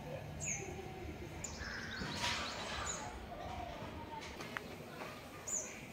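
Birds chirping in the trees: short, high calls that sweep downward, repeated every second or so over a low background murmur, with a brief burst of hiss about two seconds in.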